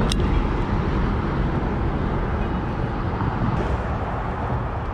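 Steady low rumbling background noise, with one sharp click just after the start.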